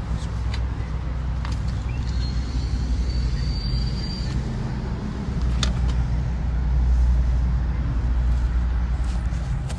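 A steady low engine-like drone, with a few light clicks and a brief thin high whine a couple of seconds in.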